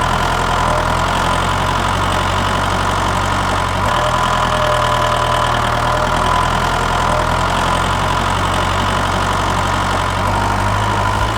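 Tractor engine idling steadily, with a constant whine over the low engine beat.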